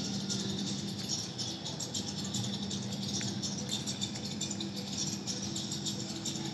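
Honda Karisma motorcycle engine running steadily, with a steady hum and a fast, even mechanical rattle over it.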